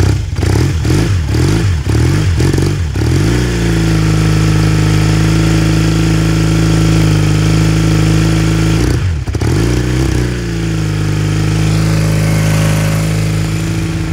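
1981 Honda CB400T Hawk's parallel-twin engine, whose two pistons rise together, blipped several times in quick succession and then settling to a steady idle. It gets one more short blip a little after nine seconds in and then idles again. It has the 'tac, tac, tac' beat typical of this kind of twin.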